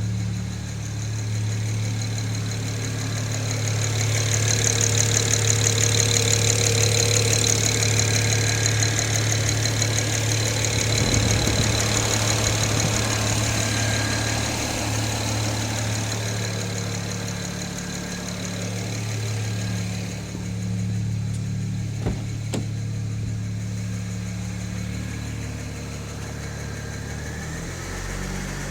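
BMW N54 twin-turbo 3.0-litre straight-six idling with a fast, even metallic ticking over the engine hum, loudest for a few seconds early on. The ticking is an unexplained fault the owner is trying to diagnose. Two sharp clicks a little past two-thirds of the way through.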